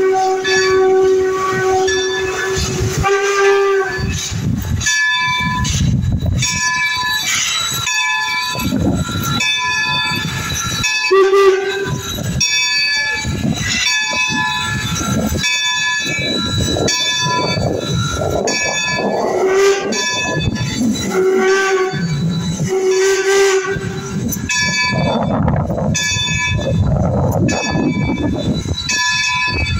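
Steam locomotive whistle held for about three seconds, then a bell ringing in steady, even strokes through the rest, with a few more short whistle toots and the chuff and hiss of steam exhaust.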